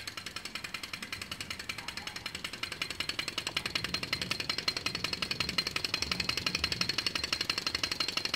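Small homemade two-cylinder thermal-lag Stirling engine, built from 20 ml syringes, running and driving a small belt-driven generator. It makes a fast, even ticking clatter of about ten ticks a second with a faint high whine, a little louder from about three seconds in.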